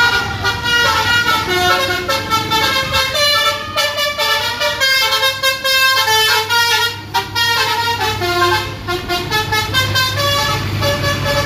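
A bus's telolet basuri musical horn playing a tune of short notes that step up and down in pitch, over the low steady hum of the bus engine.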